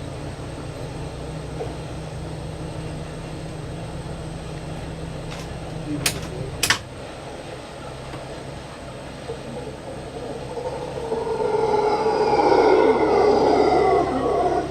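Mantled howler monkeys roaring. The howl swells in from about ten seconds in and is loudest near the end. It is the territorial call that marks a troop's place, made above all by the alpha male. Earlier there is a steady low hum, and two sharp clicks come about six seconds in.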